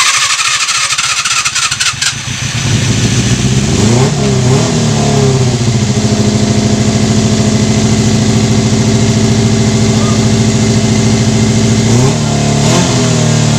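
Yamaha FZR250's inline-four engine cranked on the electric starter and catching after about two seconds, then revved up and down and left running steadily, with another short blip of the throttle near the end. It is being started after its valve clearances were reset with shims.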